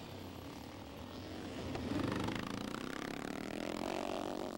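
Vintage motocross motorcycle riding past on a dirt track, its engine revving up and down as the rider works the throttle, loudest about two seconds in.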